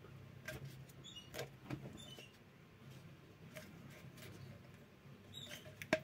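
Faint handling noise: light clicks and scrapes of a plastic washing-machine drain-pump part being handled and fitted by hand, with a few short high squeaks over a low steady hum.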